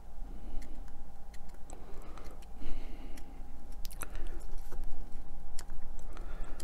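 Utility knife blade picking and scratching at the edge of a model decking piece to lift its peel-off backing: irregular small scratches and clicks.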